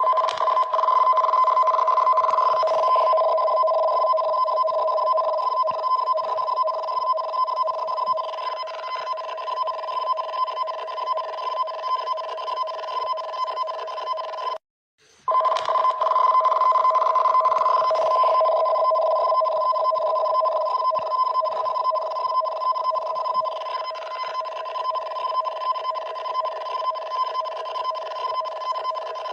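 Emergency alert alarm for a tsunami warning: two steady tones sounding together, held for about fifteen seconds. It breaks off in a short silence about fifteen seconds in, then starts the same tone again.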